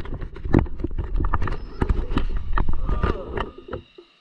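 Irregular sharp knocks and rattles from hands handling the RC car that carries the camera, with a second electric RC car driving off over rough asphalt. The knocking thins out and falls to near silence just before the end.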